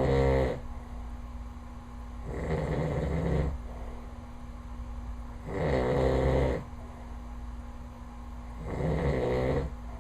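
A sleeping man snoring, a snore about a second long roughly every three seconds, four in all.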